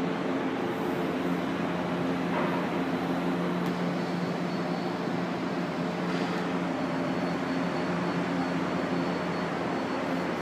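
São Paulo Metro Line 2 train standing at the platform, its on-board equipment humming steadily with several low tones. A faint high whine joins about four seconds in.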